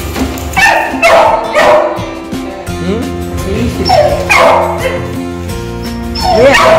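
A young puppy yipping and barking in short, high, falling cries, in three bunches, over steady background music.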